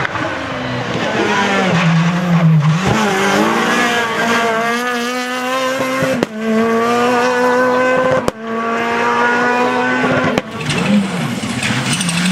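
Rally car engine at full throttle, its pitch climbing through the gears with sharp breaks at the upshifts about 6 and 8 seconds in.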